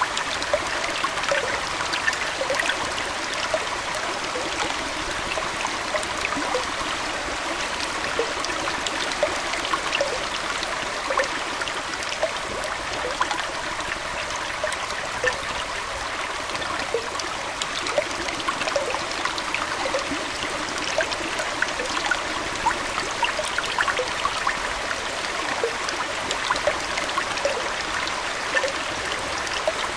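Aquarium water flowing steadily, a trickling stream sound with many small plinks and drips scattered throughout.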